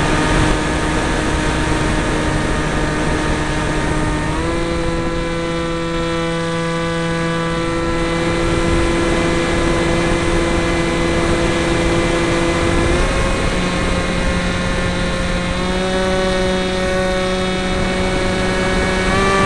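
Motor and propeller of a depron model F-22 plane, heard from a camera on board over a hiss of rushing air: a steady whine that steps up in pitch about four seconds in, dips slightly after thirteen seconds, and steps up again twice near the end as the throttle changes.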